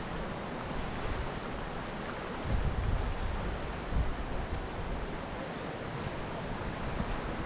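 River water rushing steadily through a small rapid. Gusts of wind rumble on the microphone, most strongly about two and a half seconds in and again about four seconds in.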